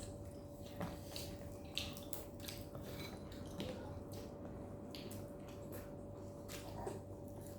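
Eating sounds: irregular small clicks and soft squishy noises of chewing and of utensils against a dish, over a faint steady hum.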